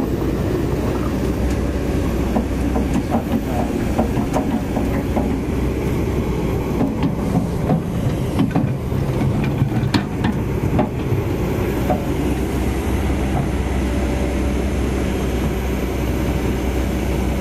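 A large flock of ducks giving a dense, continuous mass of quacking and chatter over a steady low rumble.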